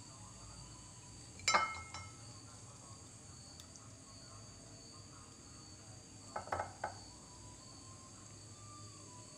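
Wooden spatula and frying pan knocking against a ceramic plate while chicken curry is scraped out: one sharp clink about a second and a half in, then a quick run of three knocks near the middle-to-end. A steady high trill of crickets continues underneath.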